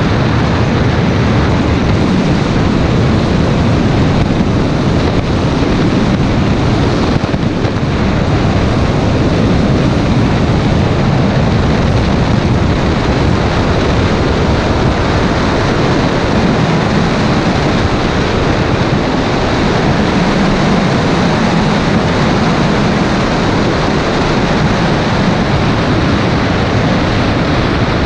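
Steady wind rush and road noise from a Toyota MR2 Mk2 driving at speed, picked up by a camera mounted outside the car, with wind on the microphone.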